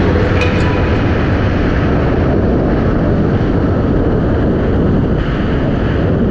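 Snowmobile engine running steadily at trail speed, with wind rushing over the microphone.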